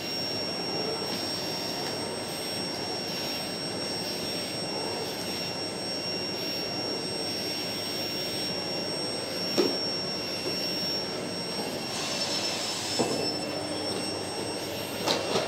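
Canister vacuum cleaner running steadily with a high motor whine as its floor head is pushed back and forth over a rug. A few short knocks come through, the sharpest about ten seconds in and a couple near the end.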